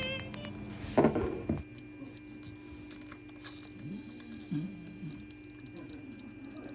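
A litter of kittens nursing from their mother: faint rustling and suckling in a small space, with a louder, brief rustle or bump about a second in.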